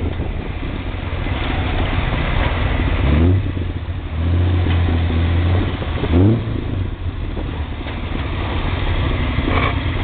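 Ford rat rod's engine running under way, its revs climbing sharply twice, about three seconds in and again about six seconds in, then holding steady.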